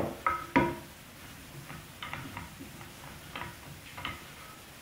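Two wooden knocks as the box and homemade wooden bar clamp are set on the bench, then a few light clicks and ticks as the clamp's screw is turned and its wooden jaws close on the box.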